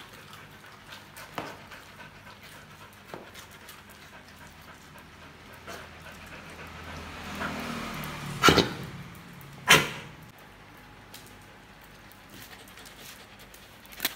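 Puppies playing, with two loud, sharp barks a little over a second apart past the middle and light scattered clicks in between.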